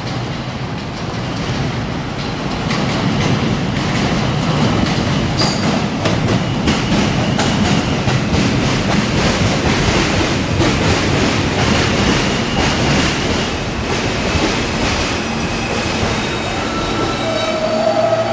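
R160A-2 subway train arriving at the platform: its wheels clatter over the rail joints and squeal briefly, getting louder as the cars draw up alongside. Near the end, as it slows, steady whining tones from the train's electric motors come in over a low hum.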